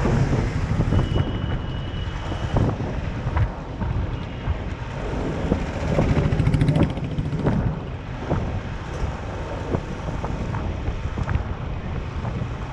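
Wind buffeting the microphone over the running engine of a moving motor scooter, with street traffic around it.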